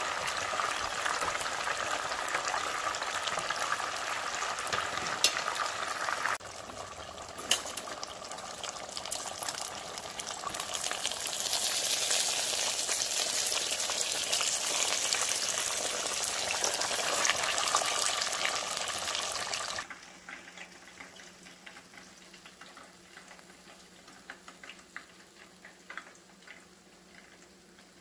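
Whole battered chicken deep-frying in a pot of hot oil, the oil sizzling and bubbling steadily. The sizzle gets louder and hissier in the middle as tongs lift the chicken, then cuts off suddenly about two-thirds through, leaving only faint scattered clicks.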